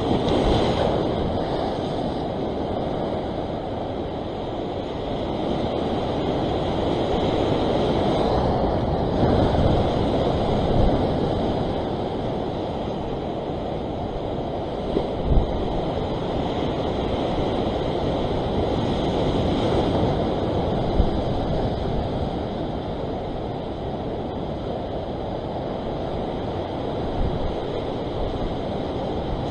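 Ocean surf washing and breaking against a rock ledge: a steady rushing wash that swells and eases slowly, with wind buffeting the microphone. Two brief low knocks come about halfway through.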